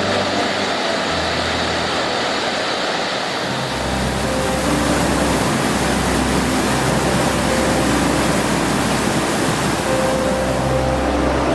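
A waterfall's heavy rushing water, a dense steady roar from a very large flow, under soft background music with held low notes.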